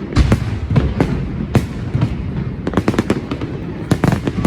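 Fireworks display going off: a deep boom just after the start, then a rapid string of sharp cracks and bangs over a low rumble.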